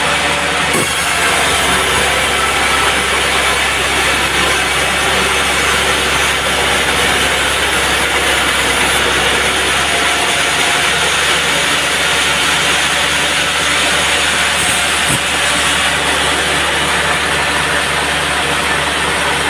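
Band sawmill running: a loud, steady mechanical drone and hiss with a constant hum, going on without a break.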